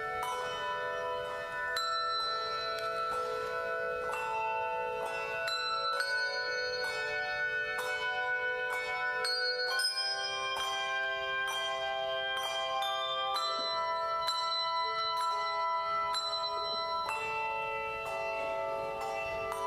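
Handbell choir playing a slow melody in chords, many tuned bells struck in turn and left ringing into each other.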